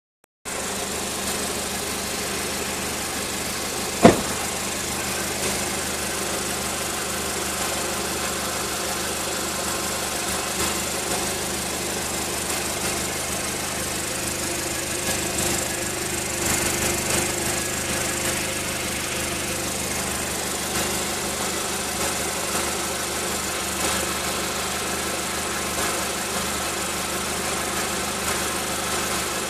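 Golf's engine idling through a resonated Milltek turbo-back exhaust, with a steady rattle from around the catalytic converter. A single sharp knock sounds about four seconds in.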